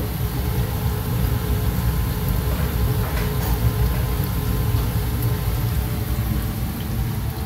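Breadcrumbed fish fillets sizzling in hot oil in a frying pan, over a steady low rumble.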